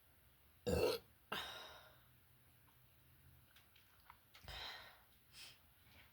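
A person burping, gas from drinking carbonated diet cola: one short, loud burp about a second in, then a breathy exhale that fades out. A second, softer sound comes about four and a half seconds in.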